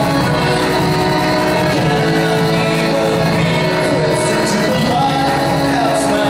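Live music led by two violins bowing long held notes together.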